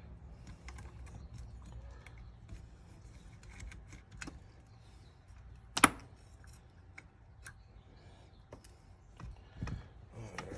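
Small metal parts and hand tools being handled while a car's windshield wiper motor assembly is taken apart on the bench. There are scattered light clicks and taps, with one sharp clack about six seconds in.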